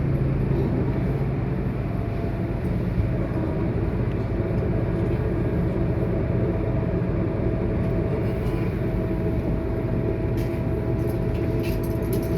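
Scania K230UB city bus's diesel engine and drivetrain running, heard from inside the passenger cabin. A steady drone carries a thin whine that steps up slightly in pitch about nine seconds in.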